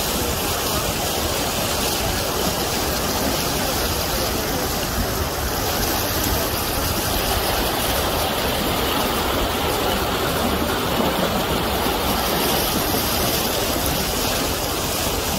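Fast-flowing floodwater from heavy rain rushing in a turbulent torrent: a steady, unbroken rush of water.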